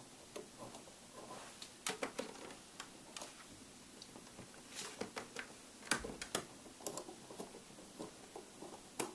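Light, irregular clicks and taps of a small screwdriver, screws and fingers against a laptop LCD panel's metal frame and plastic lid while its mounting screws are being refitted, with a few sharper clicks about two, six and nine seconds in.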